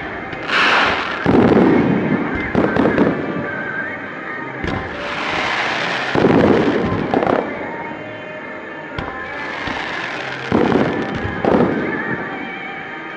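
Aerial fireworks in a rapid multi-shot barrage (a starmine): shells boom and crackle in three clusters, about a second in, around six seconds in and again near eleven seconds.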